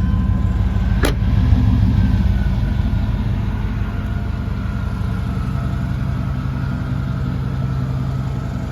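1990 Chevrolet truck's factory 350 small-block V8 idling through a Flowmaster Super 10 exhaust, a steady low rumble. A sharp click comes about a second in, and the idle settles a little quieter from about four seconds in.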